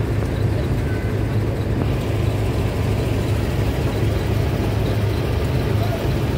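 Intercity bus's diesel engine idling steadily, a constant low hum heard from inside the passenger cabin while the coach stands parked.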